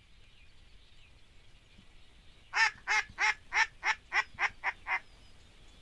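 A run of about nine loud duck quacks in quick, even succession, the first loudest and the last few shorter and a little faster, in the style of a mallard hen's calling sequence.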